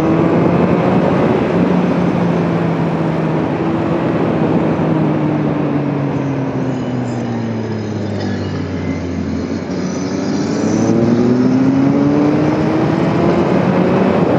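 Sport motorcycle engine running under way with heavy wind rush: the revs ease off and fall slowly for several seconds, then climb again about two-thirds of the way through as the throttle is rolled back on.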